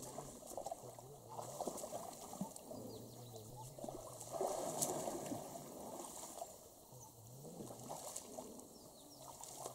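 Faint sloshing and splashing of people wading through shallow muddy water, with a slightly louder splash about halfway through. Faint low voices are heard in the background.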